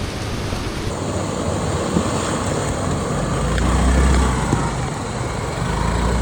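Motorcycle on the move: wind rushing over the microphone with a low rumble that swells about four seconds in.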